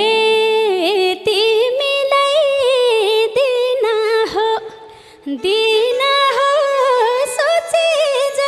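A woman singing a Nepali dohori folk line into a microphone, almost unaccompanied, in long ornamented held notes. She breaks off briefly about halfway through, then takes up the line again.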